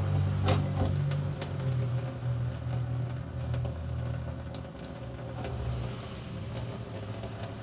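Compressed air and moisture blowing out of an air-suspension tank's open drain, a steady rush with light spattering ticks over a low steady hum.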